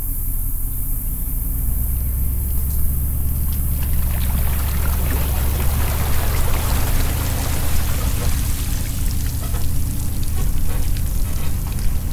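Pickup truck's engine with a steady low hum, towing a bass boat on its trailer up a launch ramp. From about two seconds in, water pours and trickles off the hull and trailer as they come out of the lake.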